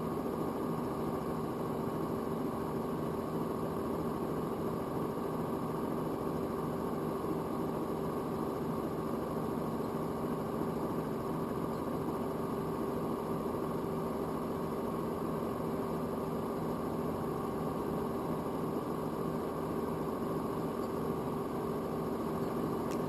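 Robinson R44 helicopter running steadily, its six-cylinder piston engine and rotors giving a constant drone with a few fixed tones, unchanging throughout.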